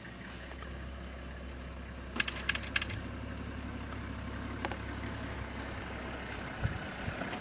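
A safari vehicle's engine idling steadily with a low hum. A little over two seconds in comes a quick run of about seven sharp clicks, and a low thump near the end.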